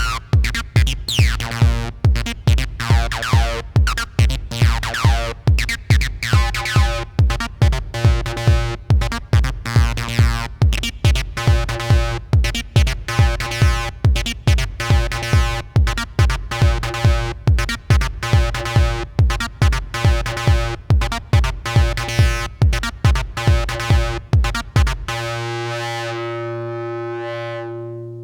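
Acid house played live on a Behringer RD-9 drum machine and a Behringer TD-3 bass synthesizer: a steady four-on-the-floor kick at about two beats a second under a squelchy synth bass line. About 25 seconds in, the drums drop out, leaving one held synth note whose tone sweeps, and it fades away near the end.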